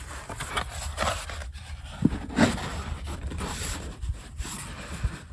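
Irregular scraping and rustling of materials being handled and set in place, with a couple of short knocks.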